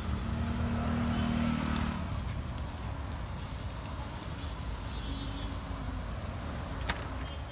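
Steady rumble of street traffic, with a motor vehicle's engine hum standing out for the first two seconds, and one sharp click near the end.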